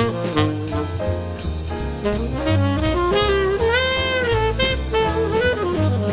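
Background jazz music: a lead melody line that bends in pitch, over bass notes and a steady drum beat.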